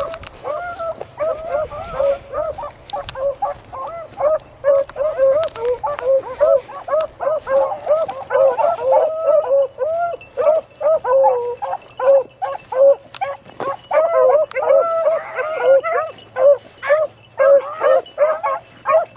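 A pack of beagles baying on a rabbit's track: a steady, unbroken chorus of short, arched bawls and yips from several hounds, overlapping several times a second. The hounds are in full cry, running the scent line.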